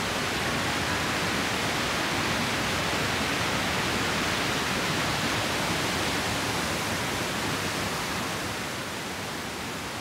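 Three-tiered waterfall rushing steadily over rocks, a dense, even roar of falling water that eases off slightly near the end.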